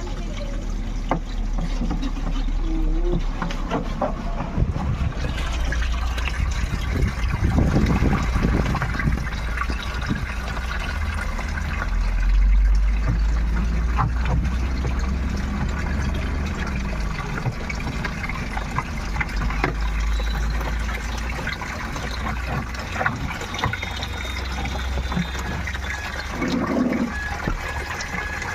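Water running and splashing inside a semi-automatic washing machine during cleaning, over a steady low hum, with occasional knocks.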